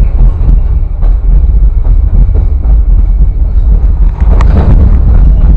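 Caboose riding along the rails, heard from its open roof: a loud, steady low rumble of the car rolling, mixed with wind buffeting the microphone. A brief high-pitched squeak cuts in about four and a half seconds in.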